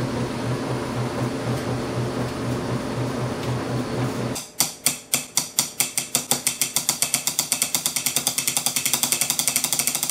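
A steady mechanical hum with a pulsing low drone. About four seconds in, it gives way to a run of sharp clicks that start slowly and speed up into a fast rattle.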